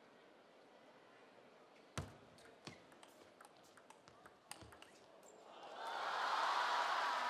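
Table tennis rally: sharp clicks of the celluloid ball off the bats and the table, the first and loudest about two seconds in and a run of lighter ones over the next three seconds. From about five and a half seconds in, applause from the crowd swells up after the point ends.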